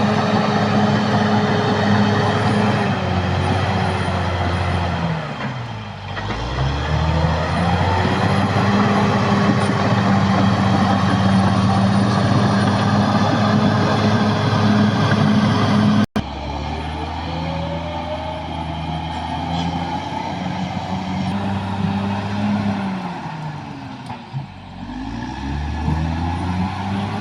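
Caterpillar D6R crawler bulldozer's diesel engine running hard. Its pitch sags twice as the engine lugs down under load and then picks back up. The sound cuts out for an instant about sixteen seconds in.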